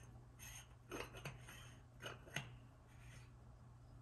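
Faint, sparse clicks and light scrapes of the billet oil catch can's greased bottom cap being handled and screwed back on by hand.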